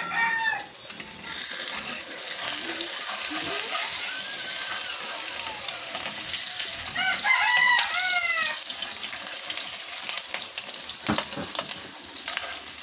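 Egg sizzling as it fries in oil in a pan, stirred with a metal spatula, with a sharp knock of the utensil on the pan near the end. A rooster crows twice, once at the start and again about halfway through.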